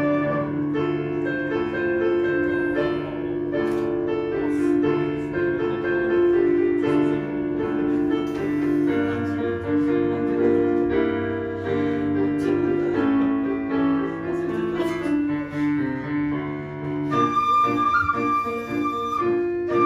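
Quena, an end-blown Andean flute, and piano playing a melody together. The piano is to the fore for most of the passage, and the quena comes in with a long high note near the end.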